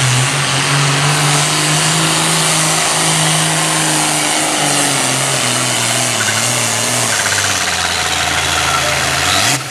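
John Deere super farm pulling tractor's turbocharged diesel engine running hard as it drags a weight transfer sled. Its pitch holds for the first few seconds, then sags steadily as the sled bogs the tractor down near the end of the pull.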